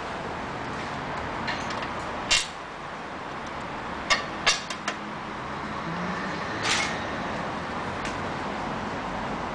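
Sharp clinks of hand tools and bolts on the metal fork and fender brackets: one about two seconds in, a quick run of three or four around four to five seconds, and a brief rasp near seven seconds, over a steady low hiss.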